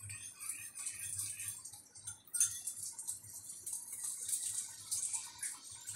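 Hot oil with garlic sizzling in a wok, a crackling sizzle that flares up about two and a half seconds in as thinned ketchup is poured into the oil.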